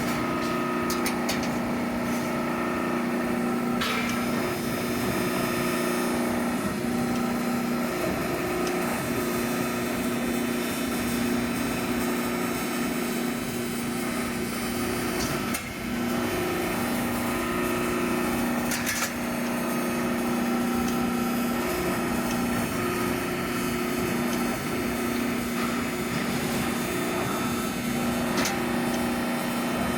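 Shop machinery running with a steady hum, broken by a few sharp clicks or knocks.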